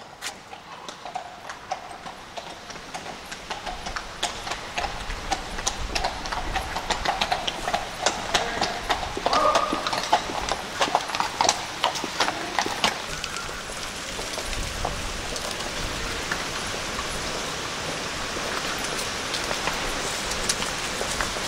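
Horses' hooves clip-clopping on a hard road surface, growing louder as they come nearer. In the second half this gives way to a steadier rushing, rolling noise.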